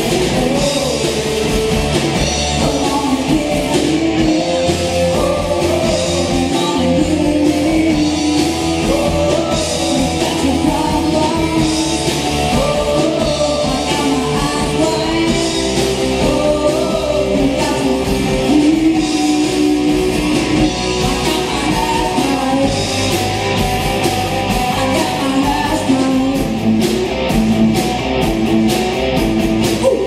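A rock band playing a song live, with a singer's voice over guitar and a steady low end.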